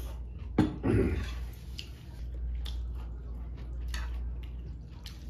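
Metal chopsticks clicking and scraping against a ceramic bowl of noodle soup as the noodles are stirred, with a sharp knock about half a second in and a brief eating noise just after. A low steady hum runs underneath.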